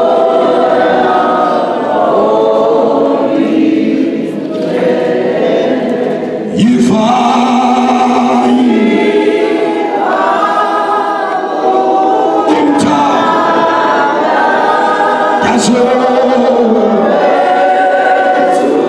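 Church congregation singing together in many voices without instruments.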